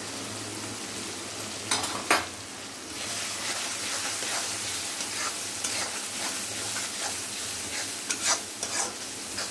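Peas, onion and freshly added ground spices sizzling in hot oil in a metal kadhai, stirred with a metal spatula. The sizzle grows louder about three seconds in as the stirring gets going, with a few sharp scrapes of the spatula on the pan around two seconds in and again near the end.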